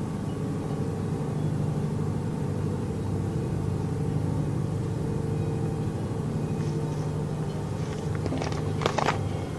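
Steady low drone made of several held tones under a faint hiss: the unexplained humming noise that sounds like an airplane but never passes. A brief crackle near the end.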